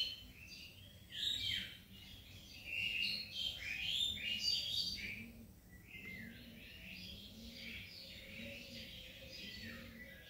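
Small birds chirping: quick runs of short, high chirps, busiest and loudest in the first half, then fainter and more scattered.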